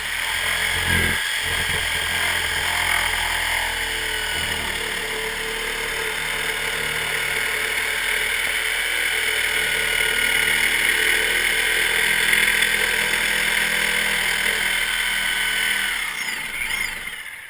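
Corded reciprocating saw running steadily as its blade cuts into a wooden soffit, then winding down and stopping about sixteen seconds in.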